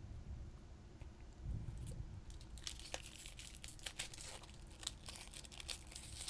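Foil wrapper of a Magic: The Gathering booster pack being torn open and crinkled. A quick run of crackles starts about two seconds in.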